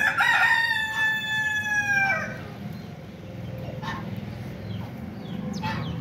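Rooster crowing once at the start, a long call of about two seconds that falls slowly in pitch, followed by a few short clucks.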